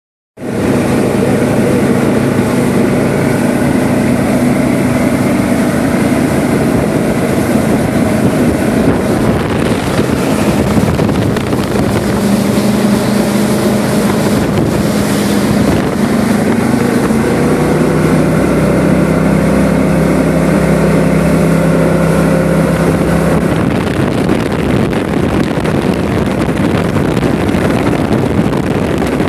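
Speedboat engine running steadily under way, with wind rushing over the microphone; the engine note steps up and down in pitch a few times.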